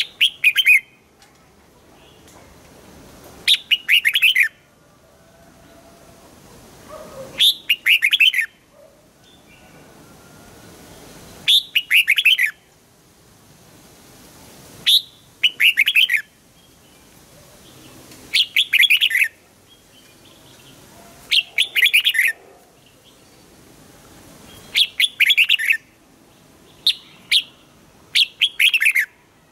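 Red-whiskered bulbul singing short, loud, warbling phrases, repeated about every three to four seconds.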